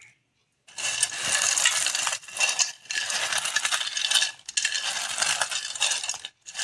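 Crisp fried potato chips being crushed by hand, crackling as the fragments rattle into a steel bowl. It comes in about four spells of crunching with short breaks between them.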